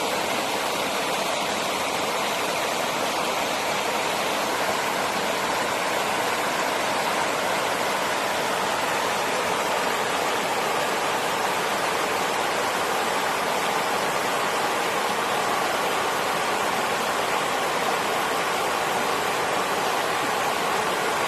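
Steady rush of flowing water, an even unbroken wash of sound like a stream or small waterfall.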